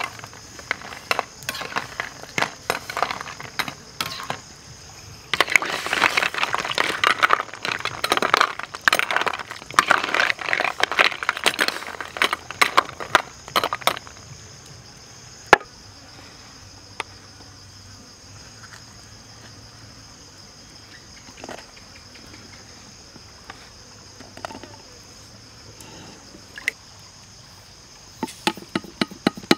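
A metal ladle stirring whole snails in a steel wok of boiling curry, the shells clattering against the metal and each other over the bubbling, busiest for the first half and then stopping. Afterwards mostly the steady high buzz of insects, with a brief patter of salt poured into a wooden mortar near the end.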